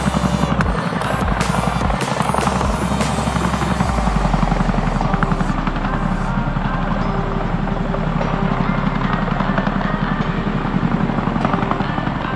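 Boeing CH-47 Chinook tandem-rotor helicopter hovering low, its two rotors beating in a steady, rapid thud.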